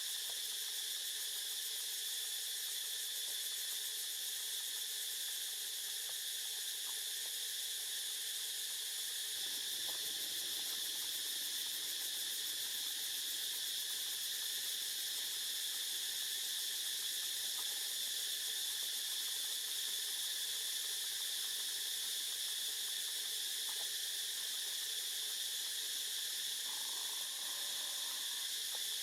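Steady high-pitched insect chorus, an unbroken drone that holds its level throughout.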